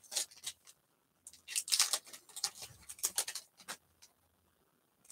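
Foil trading-card pack wrappers crinkling and rustling in the hands, with cards sliding out. The sound comes in short irregular crackly bursts and stops about four seconds in.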